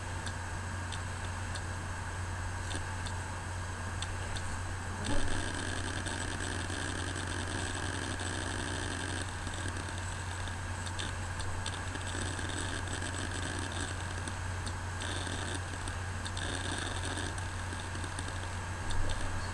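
Steady low hum of room noise, with faint scattered ticks and one short knock about five seconds in.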